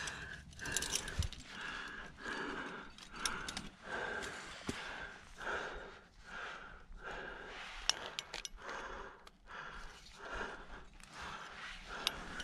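A climber breathing hard while straining up a chimney: short, regular breaths about one every second or less. Faint clicks and scrapes of gear and rock come through between them.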